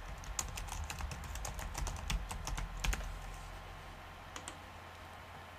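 Typing on a computer keyboard: a quick run of key clicks for about three seconds, then a few scattered clicks.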